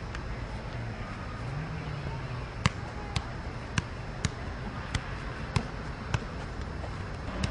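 A football being struck over and over, a sharp thud about every half second, in a run of about seven touches starting a little over two seconds in.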